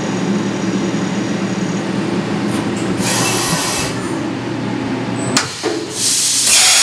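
CNC vertical machining center running as its end mill finishes a contour pass in 416 stainless steel, with a steady machine hum and a high whine for the first couple of seconds. Two loud bursts of hiss follow, one about three seconds in and one near the end as the spindle retracts, with a knock just before the second.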